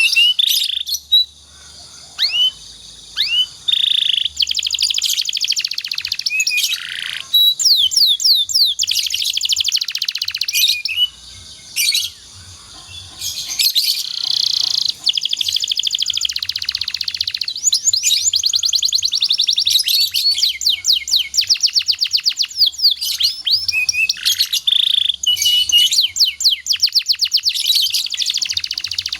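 Domestic canary singing a long, dense song of rapidly repeated trilled notes and high whistled glides, with a few brief pauses between phrases.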